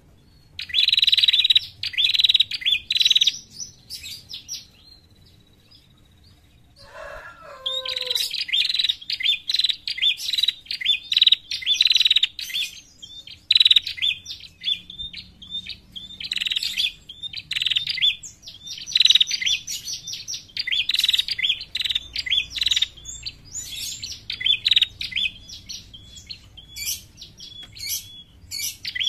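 Female prenjak calling in rapid runs of sharp, high chirps. This is the call used to lure other prenjak. The chirping breaks off for a few seconds near the start, a short lower call comes about seven seconds in, and then the chirping picks up again and keeps going.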